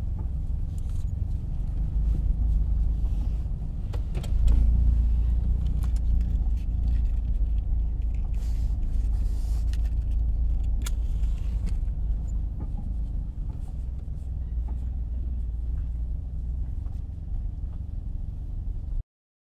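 Low, steady rumble of a moving car heard from inside the cabin, engine and road noise, growing louder about four seconds in, with a few faint clicks. It cuts off abruptly near the end.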